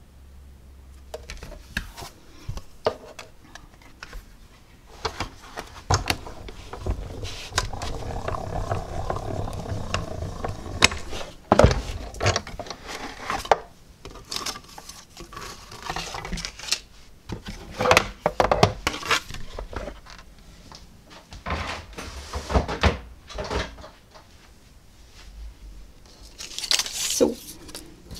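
Clicks, knocks and rubbing from working a hand-cranked die-cutting machine as the cutting plates and cardstock are fed in, cranked through and lifted out. A longer grinding stretch runs from about five to eleven seconds in. Paper rustles near the end.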